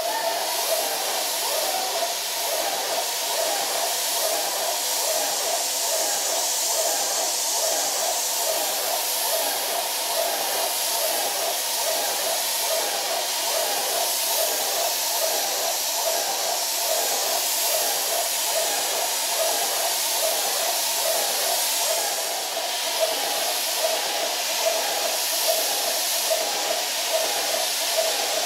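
Airless spray gun spraying ready-mix filler onto a wall: a steady, loud hiss with a fast flutter underneath.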